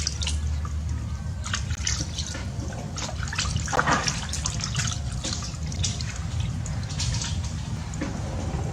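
Water splashing and dripping in a bathtub as a small monkey moves about in it, with short irregular splashes over a steady low rumble.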